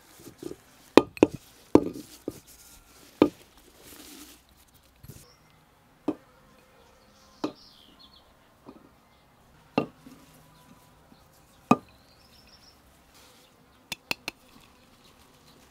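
Glass jar knocking against the rim of a clay pot as rose petals are tipped and tapped out of it, with a brief soft rustle of petals: about ten sharp knocks spaced irregularly, three in quick succession near the end.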